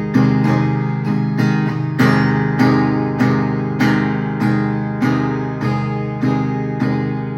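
Acoustic guitar capoed at the first fret, strummed in steady quarter-note downstrokes, a little under two strums a second, moving through the song's chord changes.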